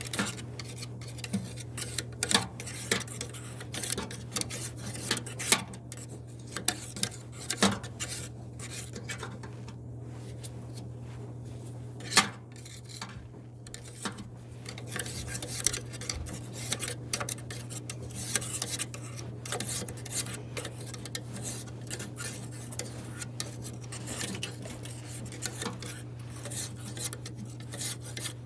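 A tool scraping and clicking against a dryer's blower wheel, working compacted lint out of its vanes, with irregular sharp clicks and rubbing over a steady low hum.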